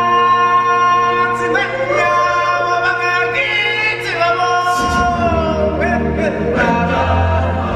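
Live stage-show music: a woman's lead voice holding long, sliding sung notes over choir voices and a backing track. The deep bass is missing at first and comes back in about five seconds in.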